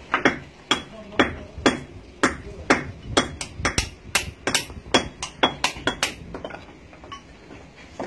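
Two masons' hammers striking natural stone, chipping and dressing building stones to shape: sharp knocks, about two a second at first, then quicker overlapping strokes, thinning out near the end.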